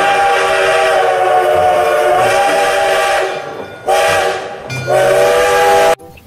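Steam locomotive whistle blowing: the end of a long blast, then a short blast and another longer one, cut off abruptly near the end.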